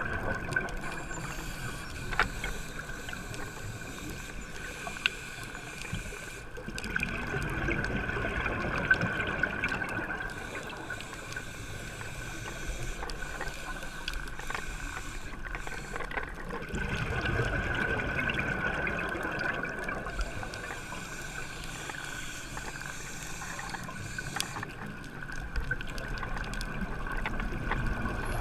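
Scuba diver breathing through a regulator underwater: slow breaths of hiss and bubbling that swell and fade about every nine seconds, over a steady faint high tone.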